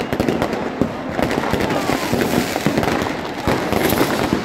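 Many fireworks and firecrackers going off at once: a dense, unbroken crackle of bangs and pops overhead.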